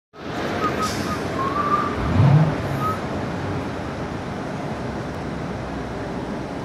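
Steady vehicle and traffic noise, with a louder low engine sound that rises briefly about two seconds in. A few short high squeaks are heard in the first three seconds.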